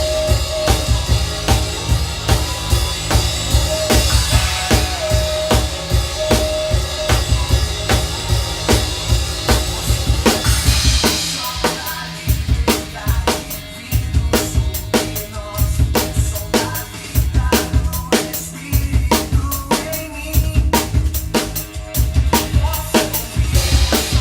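Drum kit playing a steady beat of kick drum, snare and cymbals along with the other instruments of a song, the feel changing about eleven seconds in.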